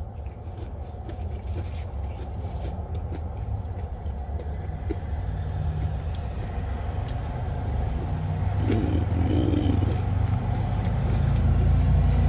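Low, steady rumble of motor-vehicle traffic that grows gradually louder, with a deeper steady hum joining in the second half.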